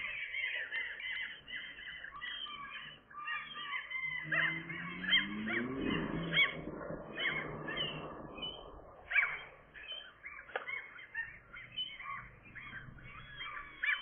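Gull chicks calling without a break: a dense run of short, high peeps, each rising and falling, with a few louder calls standing out. Under them, about four seconds in, a low sound rises in pitch for a couple of seconds.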